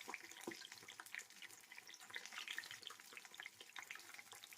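Faint crackling and popping of urad dal bondas deep-frying in hot oil in a kadai.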